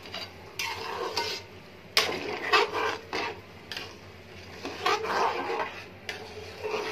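Metal spatula scraping and knocking against a metal cooking pan as rice and water are stirred together, with irregular clinks about every half second to a second.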